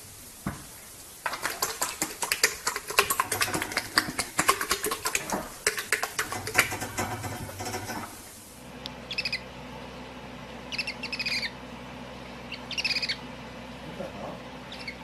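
Bird-like animal chirping: a dense stretch of rapid chirps and clicks, then short bursts of high chirps about every two seconds over a low steady hum.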